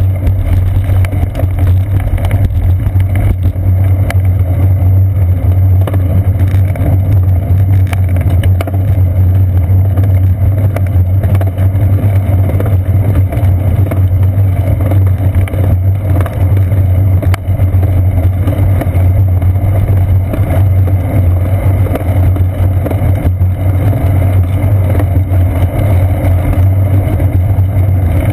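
Steady, loud low rumble of bicycle riding noise, wind and tyre vibration on a paved path, picked up through a seat-post-mounted GoPro Hero 2 in its housing.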